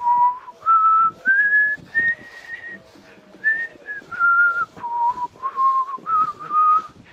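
A person whistling a tune: about a dozen clear held notes that step up and down in pitch.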